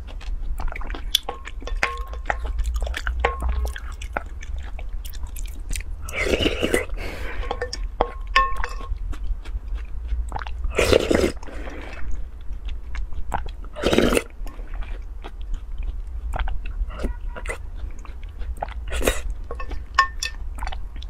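Close-up mouth sounds of eating a thick, soupy dish: wet chewing and lip smacks throughout. There are three louder slurps off a spoon, about six, eleven and fourteen seconds in.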